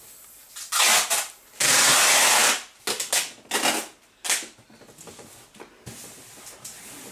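Several bursts of rustling noise: a loud one lasting about a second, then a run of shorter ones, fading to faint rustles.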